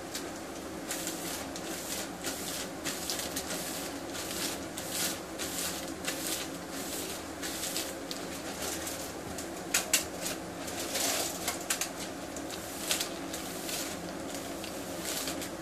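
Clear plastic zip-lock bag crinkling and rustling as it is rubbed over short waved hair in repeated, irregular strokes, the finishing step that lays down 360 waves. A steady low hum runs underneath.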